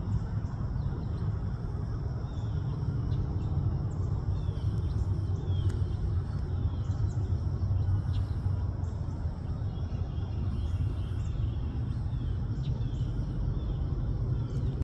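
Steady low rumble of a twin-engine wide-body jet airliner flying overhead at a distance. Small birds chirp in short, repeated downward calls over it.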